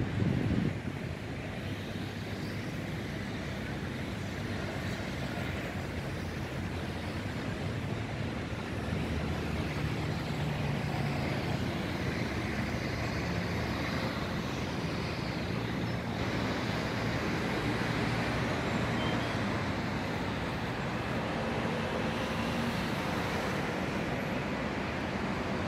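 Steady road traffic noise, with the low hum of car and bus engines, growing a little louder about nine seconds in. A brief low thump comes right at the start.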